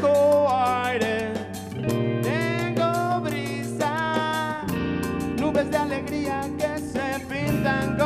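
A live band plays electric guitar, bass and drums, with a voice singing. The melody slides up into held notes in the first half, then the band moves to fuller held chords.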